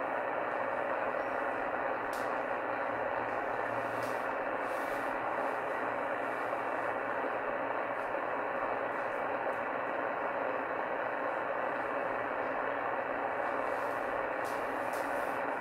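Steady hiss of band noise from a shortwave receiver tuned to 27.385 MHz (CB channel 38) on lower sideband, with no voice coming through: the distant skip signal has faded out.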